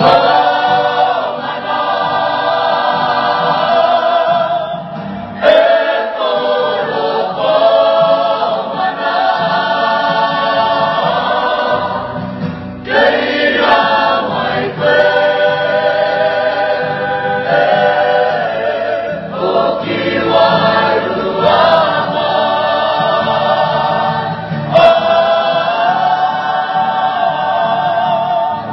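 A choir singing in long phrases of held, wavering notes, with short breaks between the phrases every few seconds.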